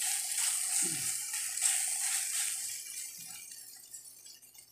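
Thinly sliced beef sizzling in a hot pan as a wooden spatula stirs and scrapes through it; the sizzle fades away over the last couple of seconds.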